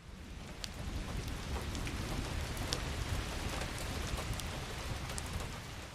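Steady rain: a dense patter with scattered sharper drops over a low rumble. It fades in at the start.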